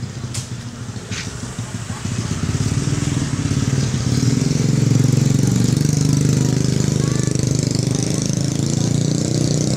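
A motorcycle engine running close by. It grows louder over the first few seconds and then stays loud and steady.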